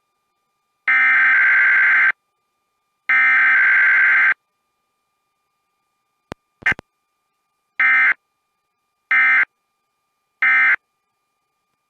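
Emergency Alert System SAME digital data bursts, a harsh modem-like warble. Two bursts about a second long are followed by a few brief clicks, then by three short bursts about a second apart.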